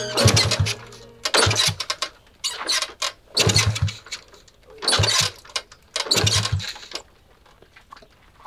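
Old small motorcycle being kick-started over and over without catching: about six kicks, each giving a short burst of engine noise that dies away at once. The kicking stops about seven seconds in.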